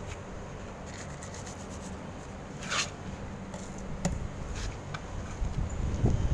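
Dry cat kibble tipped and shaken out of a clear plastic tub onto concrete: a few short rattles and scrapes of pellets and plastic, the loudest about three seconds in. A low rumble builds near the end.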